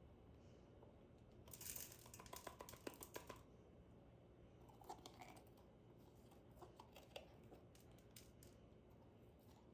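Faint rustling and light clicks of things being handled, a cluster of them about one and a half to three and a half seconds in and a few more later, over a quiet room hum.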